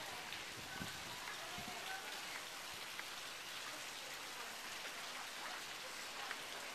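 Water from a garden fountain splashing steadily, an even patter of falling water.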